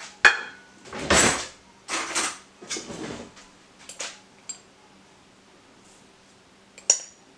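Clinks, scrapes and rustles of a glass jar of dried yeast being opened and spooned from, a series of short sharp sounds over the first few seconds. Near the end comes a single sharp ringing clink of a spoon on the Thermomix's stainless-steel mixing bowl.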